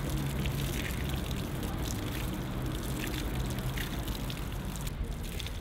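Water running from an outdoor tap and splashing steadily over a Pentax K-1 camera held under the stream as it is washed.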